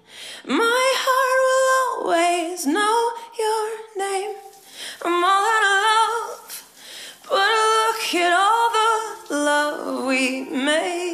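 A woman singing held, wavering phrases with short breaks between them, with no bass or backing instruments heard.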